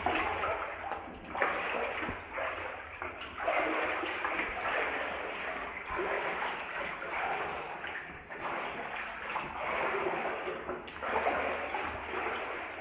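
Wading through water in a flooded rock tunnel: each stride splashes and sloshes, about one every second or so.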